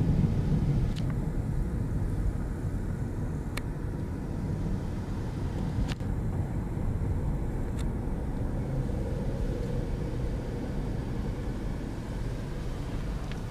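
Steady low rumble of car engine and tyre noise heard inside a moving car's cabin, with a few short clicks.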